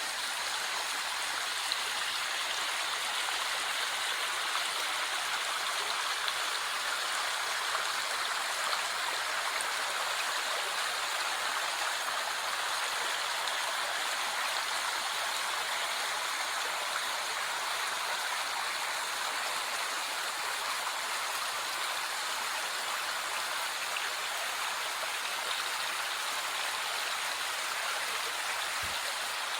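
Flowing water of a small river, a steady even rush.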